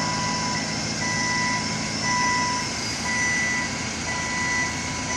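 Backup alarm on a yellow forklift beeping about once a second, each beep about half a second long, over the vehicle's engine running as it moves.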